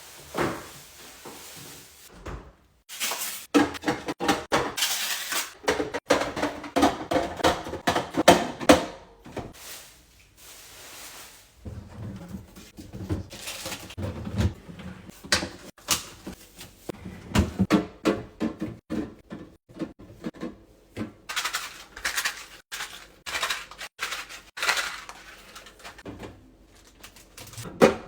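Cans, bottles and food containers knocking and clinking irregularly as they are set onto refrigerator shelves and into drawers.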